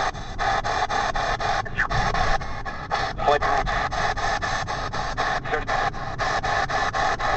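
P-SB7 spirit box radio sweeping the FM/AM bands: choppy static hiss stepping from station to station about five times a second, with brief snatches of radio sound breaking through about two and three seconds in.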